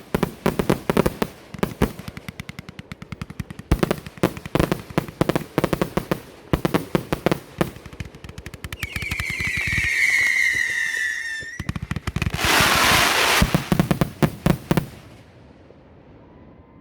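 Fireworks going off: rapid strings of crackling pops for about eight seconds, then a whistling firework giving one long whistle that falls slightly in pitch. A loud hissing rush with more crackling follows, and the noise stops a couple of seconds before the end.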